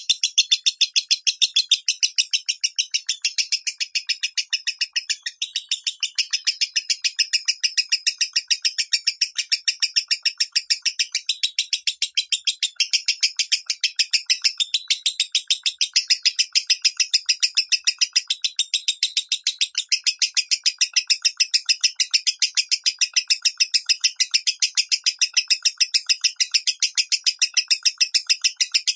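Lovebird giving its long 'minor' call: an unbroken run of short, sharp, high chirps repeated rapidly at about five a second.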